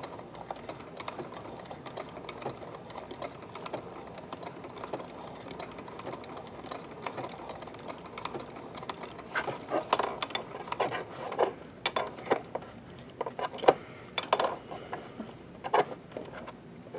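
Sewing machine stitching a multi-point zigzag with the feed dogs dropped, the needle mechanism ticking rapidly and steadily. From about nine seconds in, louder irregular clicks and knocks come in.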